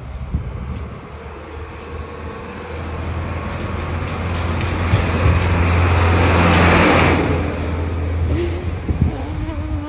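A road vehicle passing close by: a low engine and tyre rumble that swells for several seconds, peaks with a loud rush about two-thirds of the way through, then falls away.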